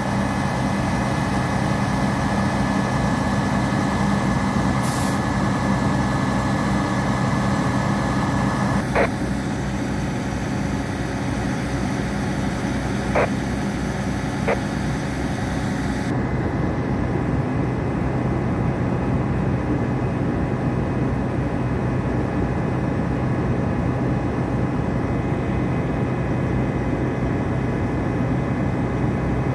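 Emergency vehicles' engines idling in a steady low drone, with a few sharp clicks in the middle; the higher hiss drops away about halfway through.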